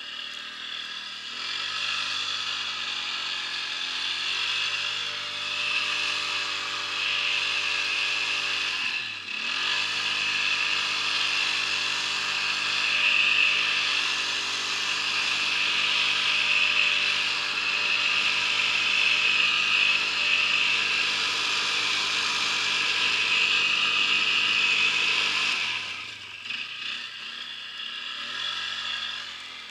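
ATV engine revving hard and held at high revs while the quad spins doughnuts in the snow. The revs dip sharply about nine seconds in, climb back, and drop to a lower, uneven speed near the end.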